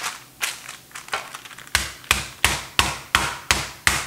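Chicken breast being pounded flat between sheets of parchment paper. A few light knocks come first, then steady, even blows about three a second from a little under two seconds in.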